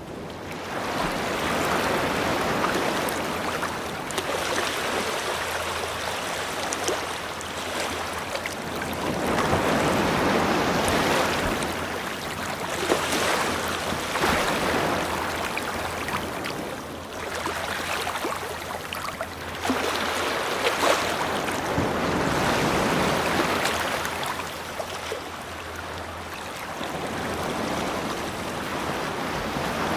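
Ocean surf: waves breaking and washing up the shore in slow surges that swell and fade every four to six seconds, with small crackling splashes in the wash.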